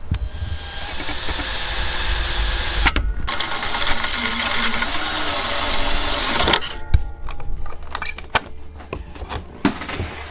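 Power drill running in two stretches, about three seconds, a brief stop, then about three and a half seconds more, cutting off sharply. A few clicks and knocks follow.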